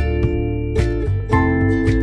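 Background music: plucked guitar over a steady beat of about two strikes a second.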